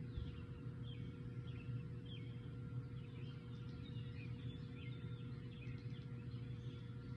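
Several birds chirping and calling in short, repeated notes throughout, over a steady low hum.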